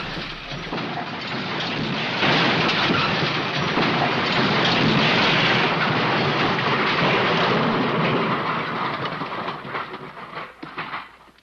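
A long crash sound effect: a dense rumbling, rattling roar of tumbling debris that holds steady, then thins into scattered clatters and dies away near the end.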